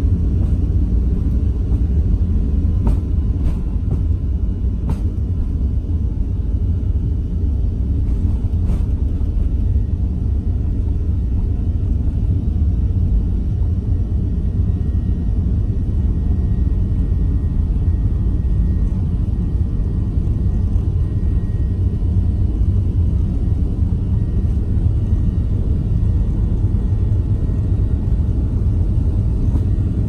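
Boeing 737-800's CFM56 turbofan engines at full takeoff thrust, a loud, steady, deep rumble heard from inside the cabin. A few faint clicks in the first nine seconds.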